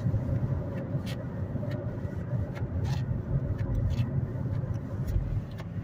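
Inside the cabin of a moving car: the steady low rumble of engine and tyres on the road, with a few scattered light ticks.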